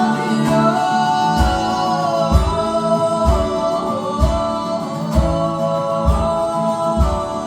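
Live band music: sustained guitar and held tones over a low beat that lands about once a second.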